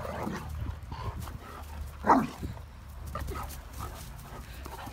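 Great Danes at rough play, with one loud bark about two seconds in and a few quieter short dog sounds around it.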